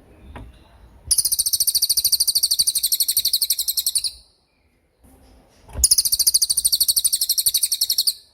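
A cililin songbird singing its 'tembakan' song: two long, high-pitched rapid trills of about ten notes a second, the first about three seconds long and the second about two and a half seconds, with a short pause between them.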